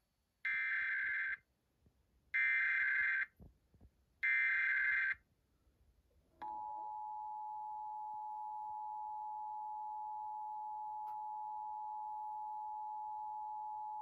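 Emergency Alert System header coming through a TV speaker: three short bursts of SAME data tones, each about a second long. About six seconds in, the steady two-tone attention signal starts and holds unchanged. Here it marks a required monthly test.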